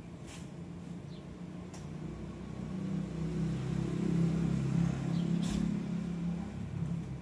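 A motor vehicle's low engine rumble swelling up and fading away again, as when a car passes by. A few faint clicks and short high chirps sound over it.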